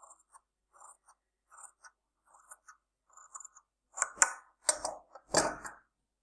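Large tailor's shears cutting through folded cloth in a run of short, quiet snips, several a second apart. Near the end, three much louder clunks and rustles as the shears and cloth are handled and set down on the sewing-machine table.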